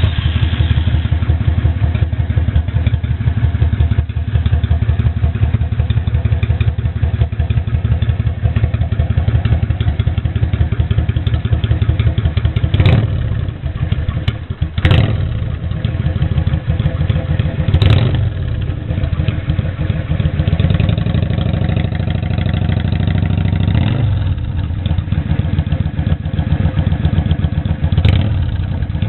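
Yamaha DragStar 400's V-twin idling through a Twin Sword exhaust with its inner silencers (baffles) removed, a deep bass beat. It is blipped on the throttle about five times in the second half, each rev rising and falling back to idle.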